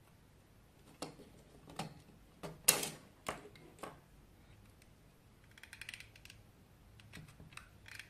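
Hard plastic flashlight parts clicking and knocking as they are handled and set down on a tabletop: about half a dozen separate knocks in the first four seconds, the loudest near the middle, a quick run of tiny clicks about six seconds in, then a few lighter clicks near the end.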